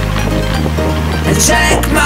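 Background music: a beat with a deep bass line that changes note twice and no vocals, with a bright swishing sound flaring up near the end.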